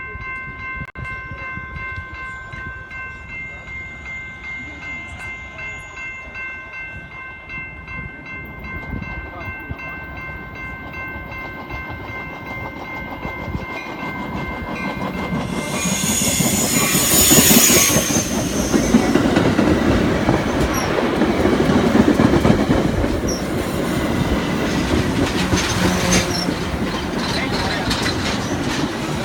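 Metra commuter train approaching and passing. A steady chord of high tones sounds through the first half, then the train's noise builds to a loud, dense rumble and hiss from about halfway in, with wheel-on-rail clatter as the cars go by.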